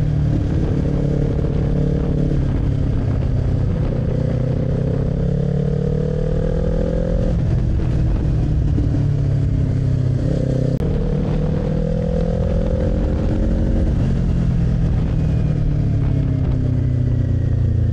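Kawasaki Z400's parallel-twin engine running under way. The pitch climbs twice as it accelerates, with a sudden drop between the climbs, then eases off toward the end.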